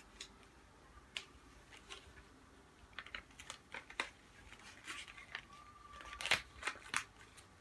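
Sheet of paper rustling and crackling as it is folded and creased by hand: scattered soft clicks and crinkles, busier in the second half.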